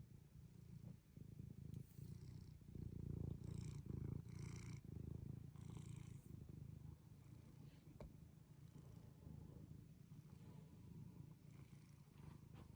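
Domestic cat purring: a faint, steady, low pulsing rumble, with a few brief soft hiss-like noises over it in the first half.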